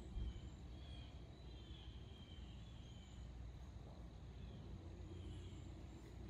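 Quiet outdoor ambience: faint high chirps from birds or insects repeating every half second or so over a low rumble, with a soft low bump just after the start.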